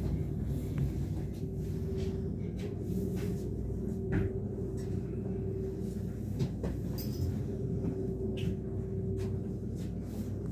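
Gornergratbahn electric rack-railway train running downhill, heard from inside the car: a steady low rumble with a steady whine that swells and fades, and scattered short clicks and knocks from the running gear and car body.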